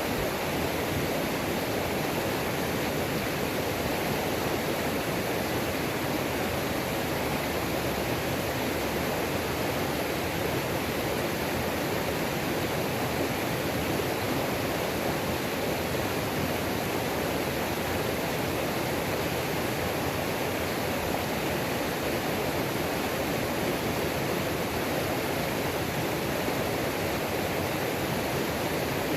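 Waterfall on a mountain creek: water pouring and splashing in a steady, even rush, with no change or break.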